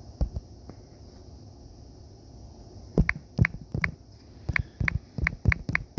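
Sharp clicks from operating a computer: a single click just after the start, then a quick run of about eight clicks at roughly three a second through the last three seconds.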